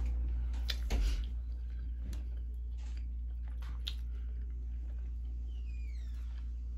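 Close-miked chewing and mouth sounds of a person eating, with a few scattered short clicks and smacks over a steady low hum.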